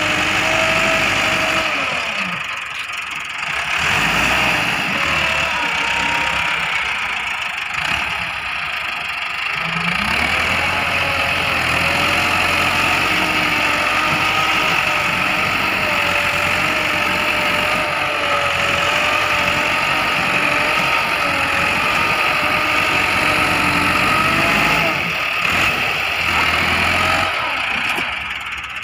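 Millat Massey Ferguson 375 tractor's four-cylinder diesel engine running steadily under load as its front blade pushes soil, its note wavering and easing off briefly a few times.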